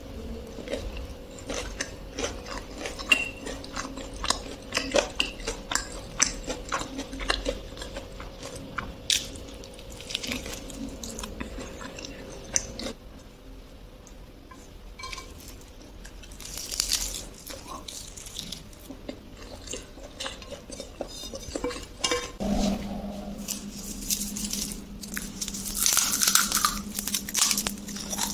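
Close-miked eating: repeated crunchy bites and chewing of fried chicken and other foods, with many sharp crunches and mouth sounds. The crunching is densest at the start, quieter through the middle, and picks up again near the end, over a faint steady hum.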